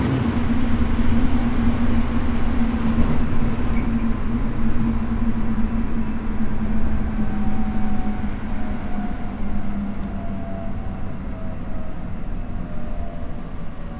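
Chiba New Town Railway 9100-series electric train with a Toyo Denki GTO-VVVF inverter, heard from inside the passenger car while running. A steady low hum sits over continuous rail and wheel noise. In the second half, faint motor whines slide down in pitch.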